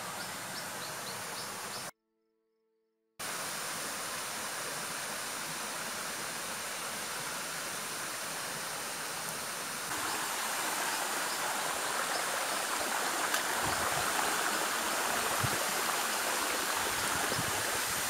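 Waterfall and the rocky stream below it rushing in a steady, even hiss. The sound cuts out completely for about a second near the start, and grows louder about halfway through.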